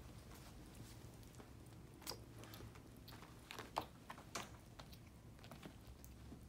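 Kittens eating soft wet food from a plate: faint, irregular smacking and chewing clicks, the loudest a little under four seconds in.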